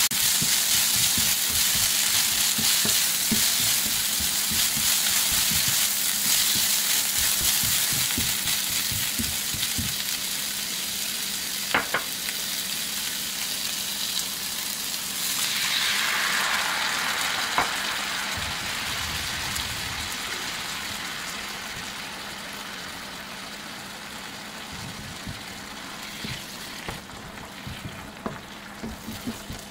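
Eggplant, pork strips and green peppers sizzling in a frying pan while a spatula stirs them, with a couple of sharp knocks of the spatula on the pan. About halfway through a fresh burst of sizzling comes as the sauce is poured into the hot pan, and the sizzle then slowly dies down as it is stirred over medium-low heat.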